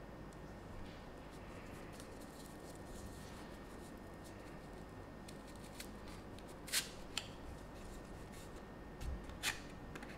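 A small cardboard box being handled and slid open: faint rubbing and scraping of card on card, with two sharper clicks, one a little past halfway and one near the end.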